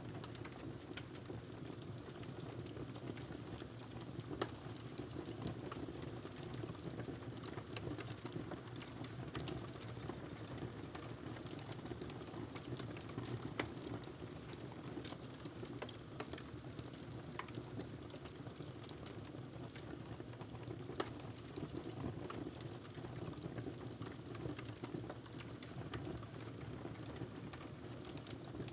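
Wood fire burning in a fireplace: a steady low rumble with irregular small crackles and pops throughout.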